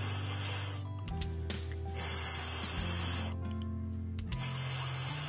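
Spray hiss in bursts about every two seconds, each lasting about a second, standing for numbing medicine being sprayed into the mouth. Background music with steady low notes plays underneath.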